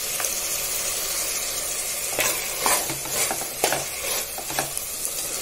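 Cauliflower and onion masala sizzling in oil in a pressure cooker pot. From about two seconds in, a metal ladle stirs it with a series of scrapes and knocks against the pot's side.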